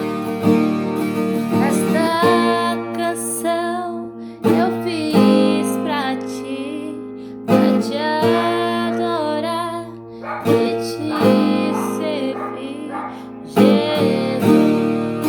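Music: a strummed acoustic string instrument, with a new chord struck about every three seconds, under a voice singing a melody.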